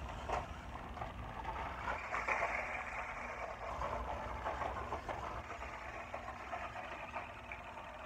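Small electric motor of a toy RC car running as it is driven across a gravel driveway, its tyres on the stones giving a steady noisy whirr with a few faint clicks.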